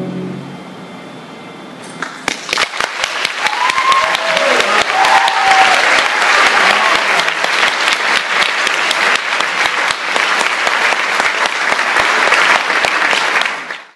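The orchestra's last chord dies away, then about two seconds in an audience starts applauding, with a few voices shouting out among the claps; the applause cuts off abruptly near the end.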